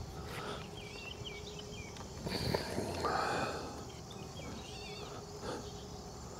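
Rubbing and scuffing of a tapered rubber cap being pushed and worked into the trim-tab bolt access hole on a Yamaha outboard, loudest for about a second midway. The cap is stubborn to seat. In the background, a faint warbling call comes twice over a steady insect-like drone.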